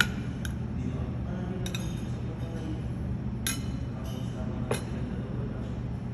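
Tableware clinking: cutlery and dishes knocking together several times, the sharpest at the very start, over a steady low hum and faint indistinct chatter.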